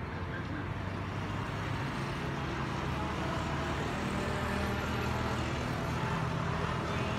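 Street traffic: motor scooters and cars passing with a steady engine hum, growing a little louder toward the end.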